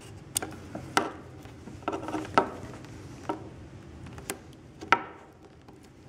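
Utility knife blade scoring a ring around the foil-wrapped plastic core of an RG-6 coax cable: irregular small clicks and light scraping, the sharpest click about five seconds in.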